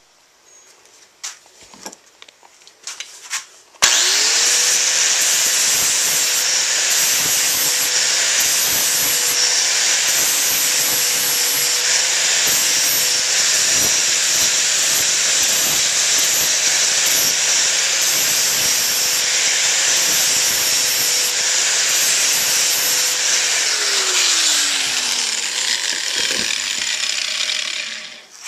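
Electric grinder grinding a weld smooth on a forged-steel pickaroon head. It starts suddenly about four seconds in after a few light clicks, runs steadily, then is switched off near the end and winds down with a falling whine.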